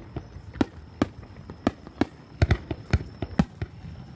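Fireworks going off: a rapid, irregular string of sharp bangs with low booms, about three a second.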